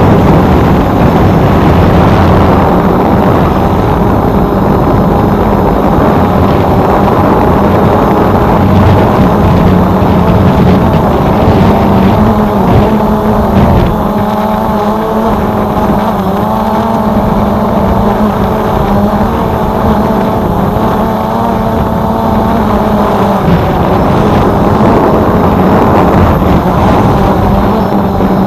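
Small multirotor drone's motors and propellers, heard loud and close, running with a steady hum under a higher whine that wavers up and down in pitch as the motors change speed.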